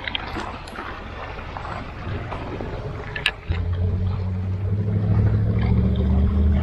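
A sharp click, then from about three and a half seconds in a low engine hum starts and runs steadily, over a background of outdoor noise.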